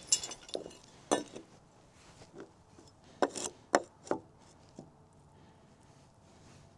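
A few sharp wooden knocks and clicks, with the loudest cluster a little past the middle, as rough-sawn lumber and hand tools are handled and set down.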